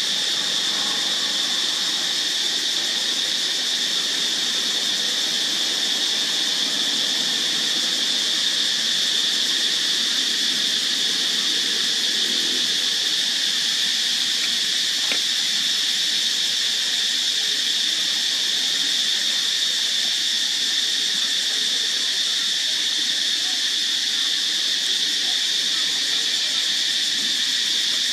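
Steady high-pitched insect chorus, one unbroken drone.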